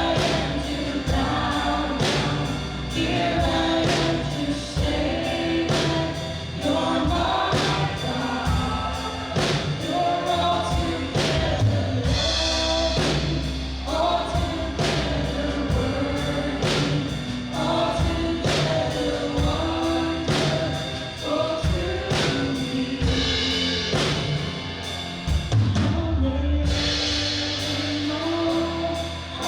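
Congregational worship music: a choir and singers over a full band with a steady drum beat.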